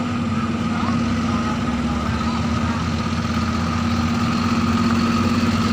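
Excavator diesel engine running steadily with an even hum.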